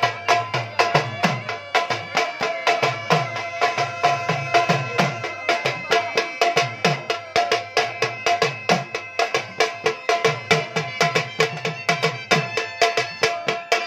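Dhol drums beating a fast, driving dance rhythm, deep strokes that drop slightly in pitch under sharper treble strokes, with a steady held melody above them.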